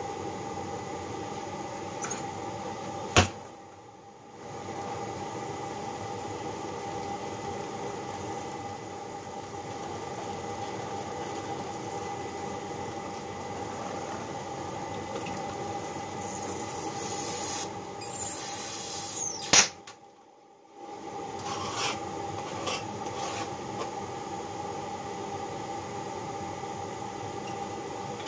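Hand work on a John Deere B connecting rod clamped in a Babbitt pouring jig: light metal rubbing and small clicks over a steady workshop hum. Two sharp metal knocks, one about three seconds in and one about twenty seconds in, are the loudest sounds.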